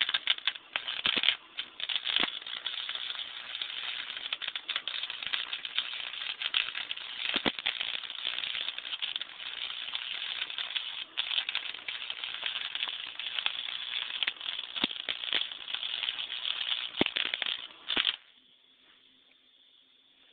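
Electric arc welding: the arc crackles and sputters, catching with a few brief stops in the first couple of seconds, then burns steadily as a bead is laid before cutting off abruptly near the end.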